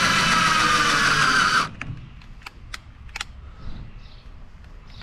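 Electric drill spinning a step drill bit with no load, a steady whine rising slightly in pitch, released about a second and a half in; a few light clicks of handling follow.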